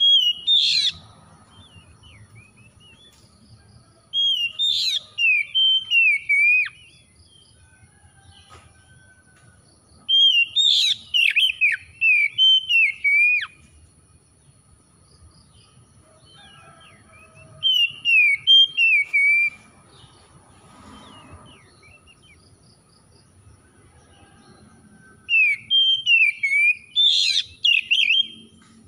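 Oriental magpie-robin singing in bouts of loud whistled phrases with sharp upward flicks, each bout about three seconds long with pauses of a few seconds between. There are five bouts, the first already ending as it begins. It is a raw, untrained ("bahan") bird singing freely ("gacor").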